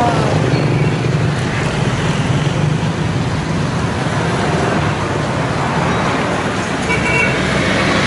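City street traffic: a steady low engine hum with road noise, and a brief high horn toot about seven seconds in.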